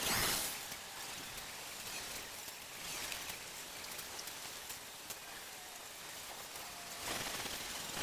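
Outdoor ambience of steady wind hiss with rustling leaves, swelling at the start and again near the end.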